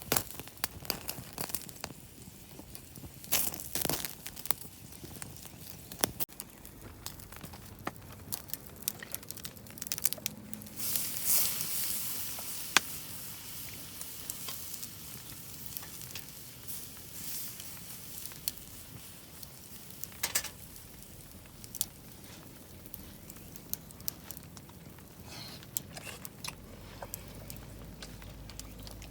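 Food sizzling as it cooks, with crackling, rustling and scattered clicks; the sizzle swells into a louder hiss for a second or two about eleven seconds in.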